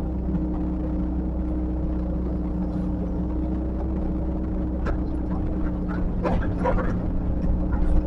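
Heavy earthmoving machine's diesel engine running at a steady drone, with a few short sharp sounds about five to seven seconds in.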